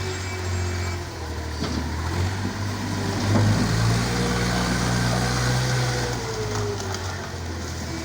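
A heavy engine running, its pitch shifting up and down as it works, loudest about three and a half seconds in.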